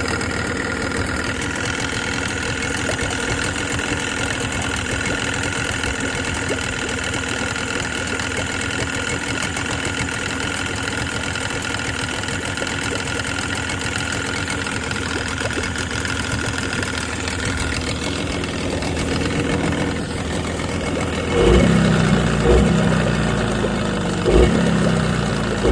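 Tohatsu 18 hp two-stroke outboard motor running steadily with an engine knock, which the owner takes for a blown engine. Several louder thumps come in the last few seconds.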